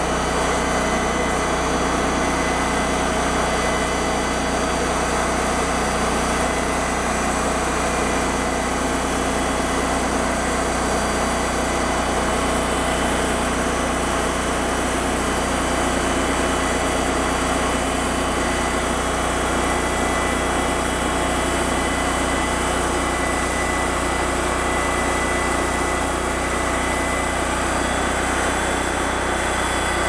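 TimberKing 2000 portable band sawmill running steadily, its blade sawing through a white willow log; the engine and cutting blade keep an even, unbroken sound.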